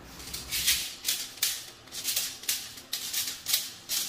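Rhythmic shaker-like rattle: short hissing strokes, high in pitch, about two a second.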